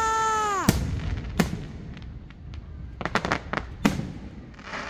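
Aerial fireworks going off: a steady whistle cuts off with a sharp bang about half a second in, followed by another bang, a quick run of sharp pops about three seconds in, and one more bang, with a short crackle near the end.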